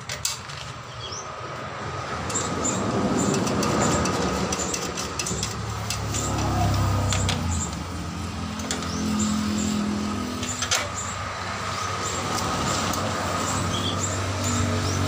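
A motor vehicle engine running nearby, swelling up and then holding a steady low hum, with a few sharp clicks.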